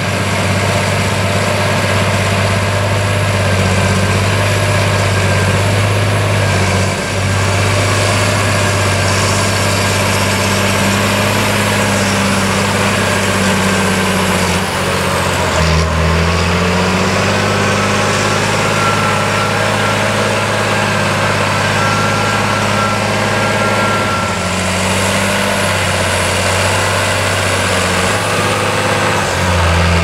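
John Deere 8210T crawler tractor's six-cylinder 8.1-litre diesel running steadily under heavy load while pulling a plough through deep, waterlogged mud. The engine note dips briefly about halfway through, then recovers.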